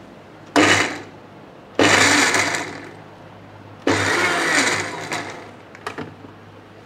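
Electric mixer grinder (mixie) pulsed three times, a short burst and then two longer runs, each starting suddenly and dying away, as it grinds coconut, mint, green chillies and tamarind into a coarse chutney. A few light clicks follow near the end.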